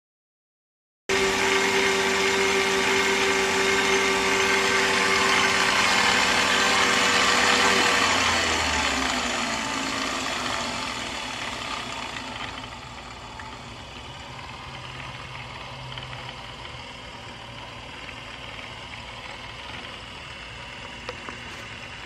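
Phipps & Bird Model 300 six-paddle lab stirrer running: an electric motor and drive whining steadily. About eight seconds in, the whine slides down in pitch and the machine settles to a quieter steady hum.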